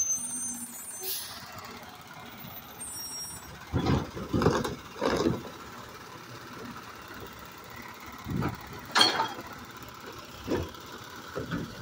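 Automated side-loader garbage truck working at the curb: its engine runs while the hydraulic arm grabs a wheeled cart and lifts it overhead to dump it. Bursts of machine noise come about four seconds in and again from about eight seconds, with a sharp bang about nine seconds in.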